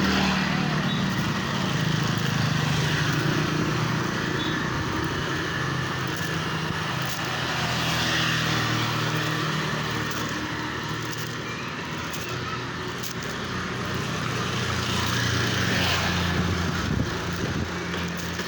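A motor vehicle running steadily, its low engine hum and road noise going on without a break.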